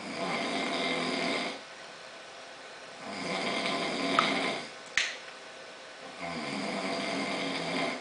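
A sleeping man snoring loudly: three long snores, each lasting about one and a half to two seconds, with quiet breaths between them. A single sharp click sounds about five seconds in.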